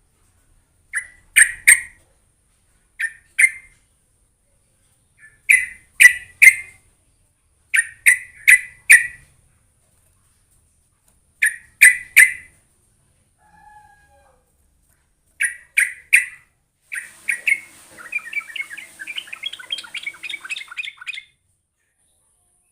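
Yellow-vented bulbul (trucuk) calling: short phrases of two to four quick, bright notes repeated every couple of seconds, breaking into a longer rapid bubbling chatter near the end.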